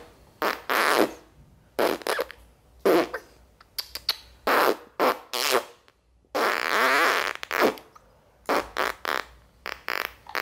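Fake fart noises, about a dozen short bursts with one longer one about six seconds in, made to lure a cat down from a high perch.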